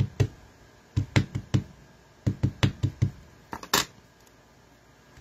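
Clear polymer tree stamp on an acrylic block being inked: the dye ink pad and the stamp tapped together, several quick dull taps in three or four short groups. A sharper click comes a little before 4 seconds in, and then the tapping stops.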